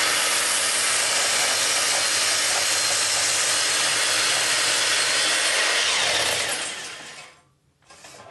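Sliding miter saw running and cutting through a stack of construction-grade wooden legs clamped together in one gang cut. The saw noise is steady and loud, then dies away about six and a half seconds in as the motor is released and the blade spins down.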